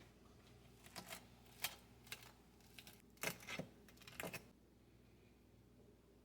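A scattering of light clicks and taps, bunched between about one and four and a half seconds in, over a faint steady hum.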